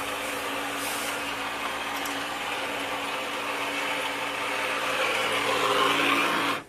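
Water running from a hose onto a pot of sand growing medium in a plastic basin, splashing steadily, over a steady mechanical hum. The splashing grows louder near the end, then cuts off suddenly.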